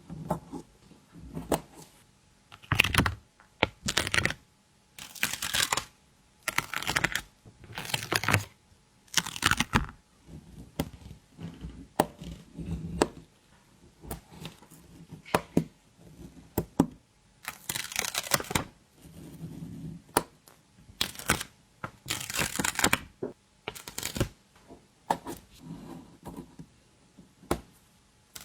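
Paper stickers being peeled off their backing sheet and pressed down by hand: a string of short, crisp peeling rips with small taps and clicks between them, at an uneven pace of roughly one every second or two.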